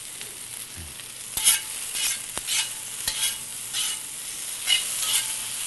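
Green beans, garlic and onion sizzling in hot pancetta fat in a cast-iron pan, with a metal spatula scraping and tossing them in about seven short strokes over a steady frying hiss.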